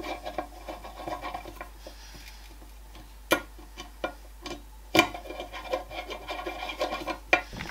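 Hand screwdriver driving the Torx screws into a rifle chassis fore end: a rasping metal-on-metal scrape in short runs as the screws are turned. There are two sharp clicks, the first about midway through.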